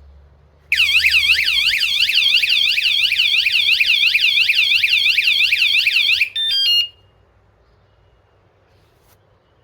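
Motion-sensor anti-theft bike alarm sounding its loud siren, a fast up-and-down wail of about four sweeps a second, starting about a second in. After five and a half seconds it ends in a quick run of falling beeps.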